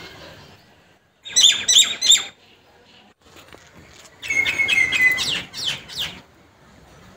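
Bird chirping: three loud, quick chirps about a second in, then a longer run of rapid falling chirps from about four to six seconds in.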